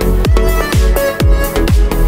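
Background electronic dance music with a steady kick drum, about two beats a second, under held synth notes.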